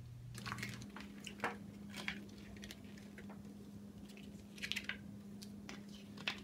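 Soft scattered clicks and light rustles of paper handling: long fingernails tapping and sliding on the glossy pages of a magazine-style brochure as it is opened and leafed through. A faint steady hum lies underneath.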